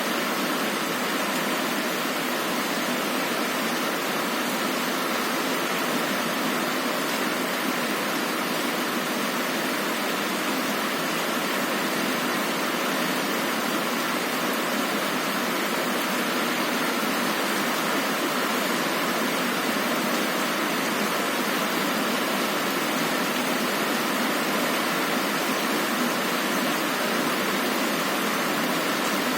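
Heavy rain falling on a window: a steady, even hiss of rain with no changes and no thunder.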